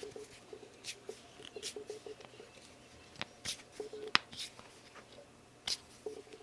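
Knuckles cracking: two sharp pops about a second apart, the second the louder, among soft breathy hisses and faint short squeaks.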